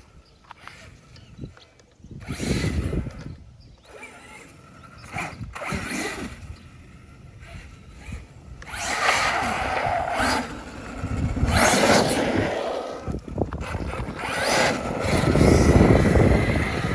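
Arrma Kraton 8S brushless electric RC truck driving on pavement in bursts, its motor and drivetrain whirring and tires rushing as it accelerates and passes. A short burst comes about two seconds in, and longer, louder runs follow through the second half.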